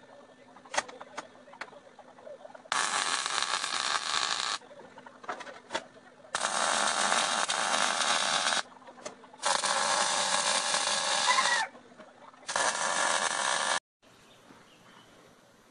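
Electric welder laying four short welds on the steel stand, each a steady hiss lasting one to two seconds, with short pauses and a few light taps between them.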